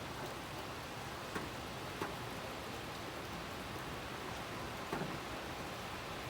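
Steady rain falling, with a few single louder drops ticking on a surface.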